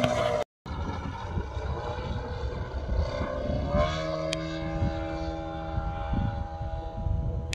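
The 3W-140 B4 four-cylinder two-stroke boxer engine of a large radio-controlled Carbon Cub model plane running in flight. Its propeller drone rises slightly in pitch about four seconds in, then holds steady. Wind buffets the microphone throughout.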